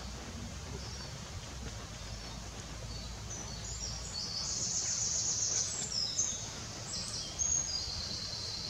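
A small bird singing, a run of high, quick notes and trills that begins about three seconds in, over a steady low outdoor rumble.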